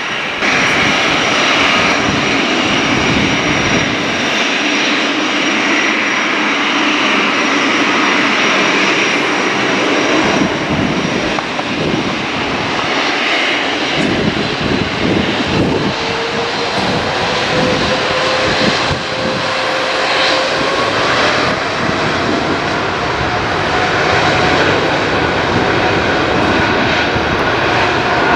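Boeing 777 freighter's twin jet engines at takeoff power: a loud, continuous roar. A rough, crackling low rumble fills in from about ten seconds in, and a faint tone slowly rises in pitch over the second half.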